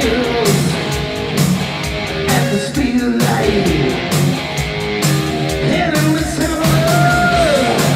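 Hard rock band playing live with electric guitars, a steady beat and a male lead vocal, heard through the in-ear monitor mix.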